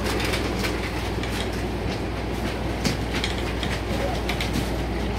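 Steady low machine hum with many short clicks and rustles over it.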